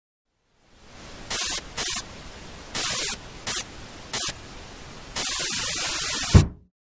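Television static hiss that fades in and surges louder in several short bursts, then a single low thump as a fist bangs the top of an old TV set, and the static cuts off.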